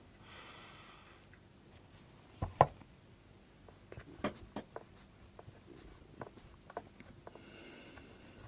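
A stiff brush scrubbing across a Shindaiwa T270 trimmer's open air filter housing and carburetor for about a second, then a loud sharp double knock about two and a half seconds in, followed by scattered light clicks and knocks from handling the engine as a cloth is laid over the carburetor.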